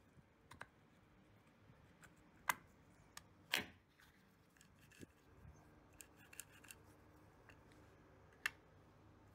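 Small metal clicks and a short scrape from a starter motor's armature being worked into its brush-side bracket. The commutator and bearing clack against the bracket and brush holders. There is a sharp click about a third of the way in, a brief scrape a second later, and another click near the end.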